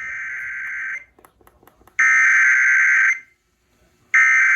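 NOAA Weather Radio SAME header coming through a weather radio's speaker: three one-second bursts of buzzy digital data tones about a second apart, the first quieter than the other two. This is the coded header that sets off the alert ahead of the warning message.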